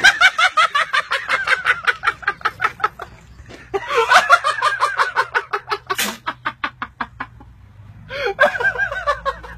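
Hearty laughter in three long bouts of rapid, pulsing 'ha-ha-ha', each pulse falling in pitch, with short breaks for breath between them.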